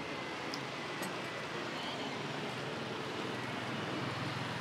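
Steady street traffic noise that grows a little louder, with a couple of faint clicks about half a second and a second in.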